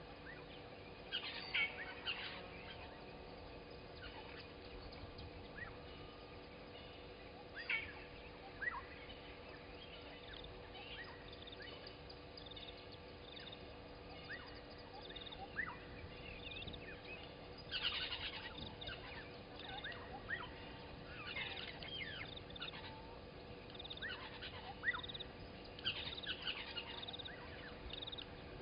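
Several wild birds calling and chirping, short falling whistles and quick repeated notes, with louder flurries now and then. A faint steady hum runs underneath.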